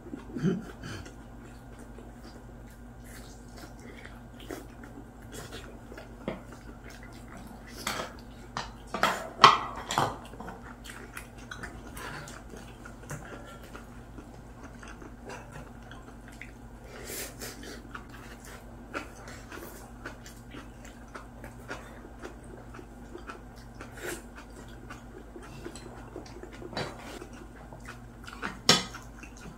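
Eating sounds: chewing and biting meat off pork back ribs, with scattered light clicks of chopsticks and spoons on ceramic bowls and a few louder clatters about nine seconds in and near the end. A steady low hum runs underneath.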